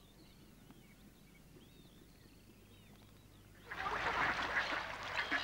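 Faint calls of small birds, then about three and a half seconds in a flock of mallard ducks starts up loudly and abruptly, a dense clamour of many quacking birds together.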